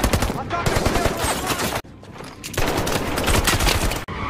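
Rapid automatic gunfire, a film action-scene sound effect. It comes in two long bursts, with a short lull a little under two seconds in before the firing resumes.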